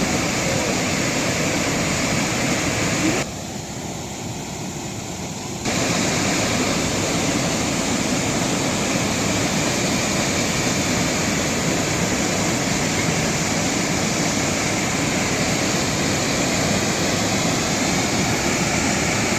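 Janggak Waterfall's steady rush of falling water. About three seconds in it drops quieter for a couple of seconds, then comes back at full level.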